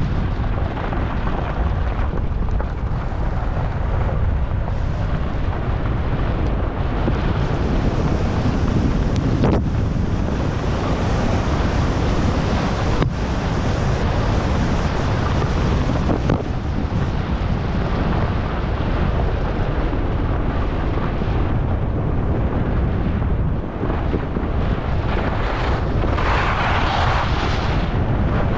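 Wind rushing and buffeting over an action camera's microphone while descending a ski slope at speed, with snow hissing and scraping under the edges; one stronger scrape comes near the end.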